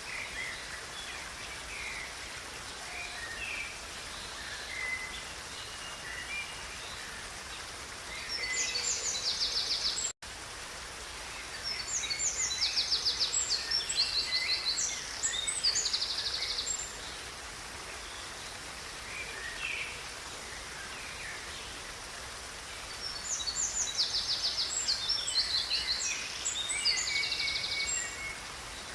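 Songbirds singing over the steady rush of a river: high, rapid trilled songs come in three spells, with scattered short chirps between them. The sound drops out for an instant about ten seconds in.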